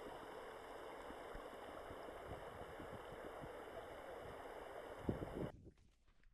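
Faint, steady hiss of outdoor background noise, with a brief low thump about five seconds in, after which the hiss cuts off abruptly.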